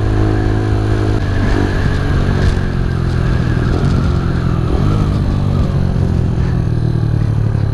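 Keeway RKS single-cylinder four-stroke motorcycle engine running at a steady cruising speed while riding, with wind rushing over the on-board microphone.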